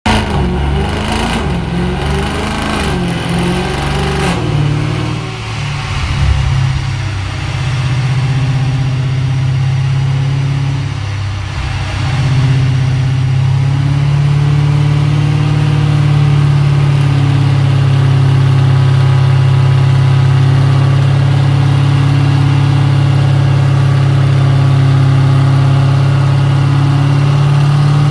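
Mercedes-Benz C63 AMG's 6.2-litre V8 running through a full iPE valvetronic exhaust: uneven and changing for the first few seconds, then settling into a steady deep drone that holds for the rest.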